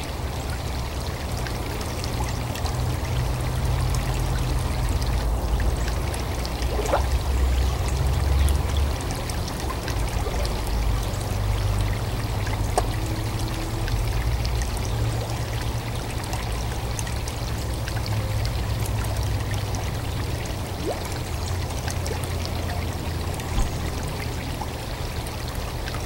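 Water from a small rock waterfall splashing steadily into a garden goldfish pond, with a steady low rumble beneath it.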